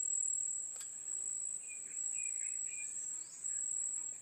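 Steady high-pitched insect drone, typical of crickets, with short chirps scattered through the middle and a single click about a second in.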